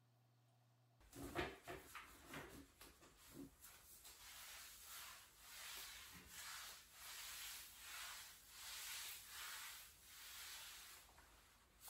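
A mop swished back and forth across a kitchen floor, about one stroke a second, faint. A few light knocks come in the first couple of seconds.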